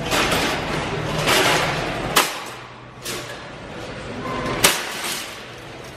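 Metal wire shopping carts rattling as one is worked loose from a nested row, with two sharp metal clanks, about two seconds in and again about two and a half seconds later, the second the loudest.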